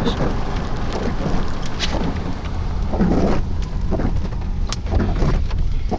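Strong wind rumbling against the microphone and vehicle, with raindrops ticking sharply on the car.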